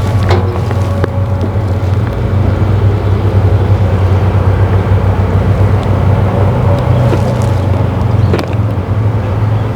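An engine running steadily at idle, a constant low hum, with a couple of faint clicks.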